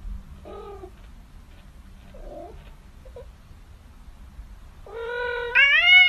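A domestic cat gives two faint short cries, then about five seconds in a loud, long drawn-out yowl that rises in pitch and holds.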